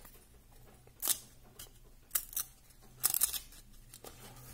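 Paper trading cards being handled: a few crisp swishes and snaps as cards are slid and pulled off a stack, the loudest cluster about three seconds in.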